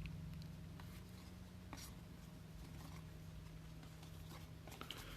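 Trading cards being handled and flipped through by hand: faint soft rustles and a few light ticks, over a steady low hum.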